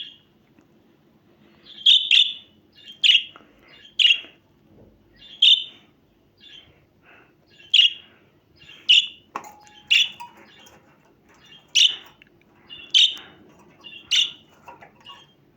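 Budgerigar giving short, sharp chirping calls, about a dozen of them, roughly one a second with a few pauses.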